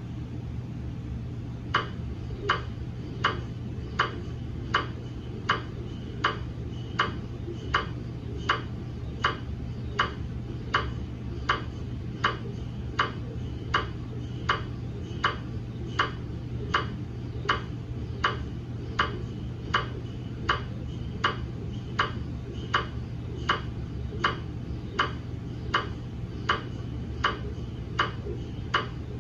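GE MRI scanner's gradient coils knocking in a slow, even pulse sequence, about one sharp pitched knock every 0.8 s, starting about two seconds in, over a steady low hum; the scanner is running its daily quality-assurance scan.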